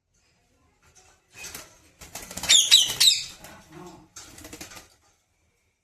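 A pet parrot flapping its wings in a few quick bursts, with short high chirping calls about two and a half seconds in.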